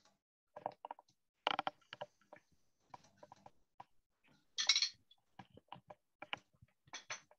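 Irregular small clicks and clinks of hard objects being handled, picked up by an open microphone, with a short hiss a little past halfway.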